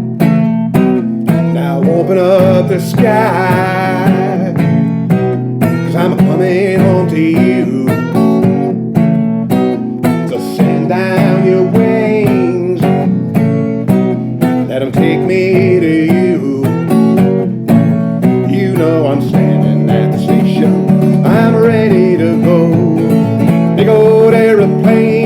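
Music: strummed acoustic guitar with a melody line wavering over the chords.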